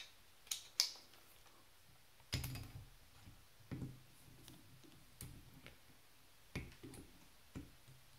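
Scattered clicks and knocks, about seven spread irregularly, of a screwdriver on an extension bar inside an airsoft M4's stock tube, working at the Phillips screw that holds the tube on.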